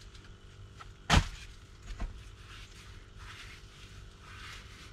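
A sharp thump about a second in and a lighter click a second later, then soft rustling as a new baseball cap is pulled on and adjusted.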